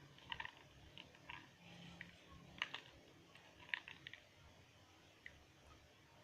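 Near-quiet room with a scattering of light, irregular clicks and taps, most of them in the first four seconds.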